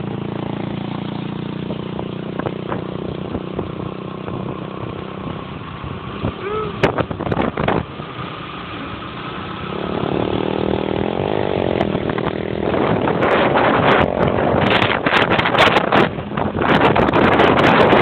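A vehicle engine running steadily. About ten seconds in, a rough rushing noise like wind on the microphone grows louder, with scattered knocks and rattles.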